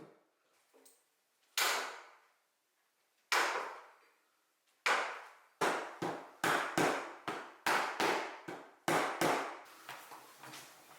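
Hammer blows on wood during woodworking. Three spaced strikes come first, then a quicker run of about ten sharp strikes, a little under half a second apart, each dying away quickly.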